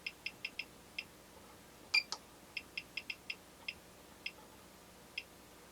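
About a dozen short, high ticks at an uneven pace, with one louder click about two seconds in: the test signal generator's controls being clicked through as the test tone is stepped back up to 1,000 hertz.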